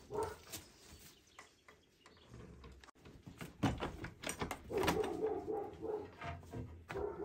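Animal calls from livestock in a wooden barn: a few pitched calls, loudest about five seconds in and again near the end, with sharp knocks and bumps of wood just before.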